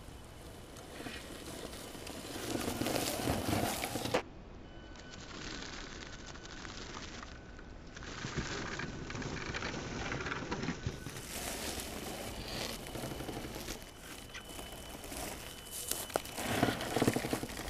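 Radio-controlled scale Unimog truck crawling through grass and dry leaves: its tyres rustle and crackle over the undergrowth with scattered small snaps, under a faint steady whine from its motor.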